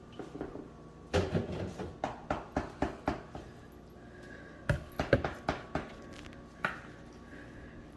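Kitchenware being handled: two runs of quick knocks and clicks, the first about a second in and the second just before the middle, with a last single knock near the end.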